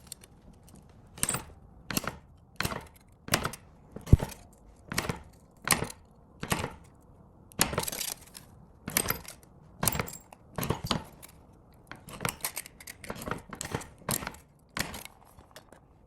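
Short, sharp scraping strokes from a hand tool worked on metal, about twenty in a steady rhythm of roughly one every three-quarters of a second, coming closer together near the end.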